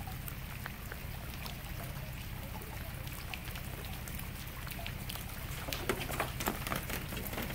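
A boat motor running low and steady, with scattered drips and patters of rain and water on top. The drips come more often near the end.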